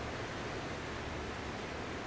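Ocean surf heard as a steady, even rush of water noise, with no separate wave crashes standing out.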